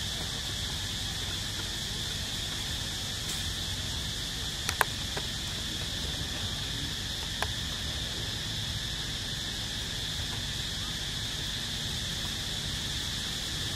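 Steady high-pitched drone of insects, over a low rumble of background noise. A few short sharp clicks come about five seconds in and again about seven and a half seconds in.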